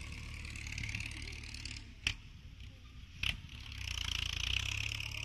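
Farm tractor's diesel engine running steadily at a distance as it pushes soil, under a steady high hiss that grows louder about four seconds in; two sharp clicks at about two and three seconds.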